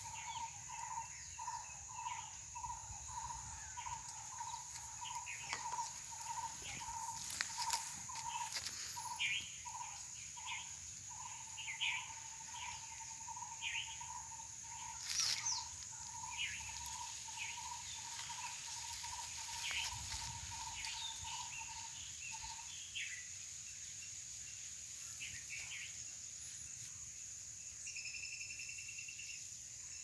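Outdoor insect and bird ambience: a steady high-pitched insect drone, a low call repeated about twice a second that stops about three-quarters of the way through, and scattered short bird chirps.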